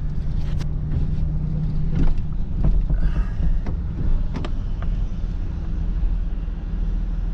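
Vehicle engine running steadily, with scattered metallic clanks and rattles over it.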